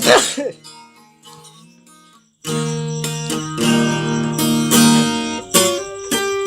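Instrumental break of a song on acoustic guitar with strummed chords. After a strum at the start the music dies away to about two seconds of quiet, then cuts back in suddenly and carries on with strummed chords.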